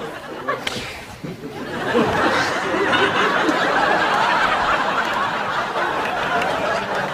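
A roomful of people laughing together. It is quieter for a moment about a second in, then swells up again and holds steady.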